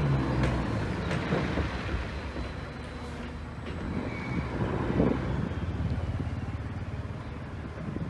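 Heavy diesel earthmoving machinery running steadily under load, with a few sharp metallic knocks.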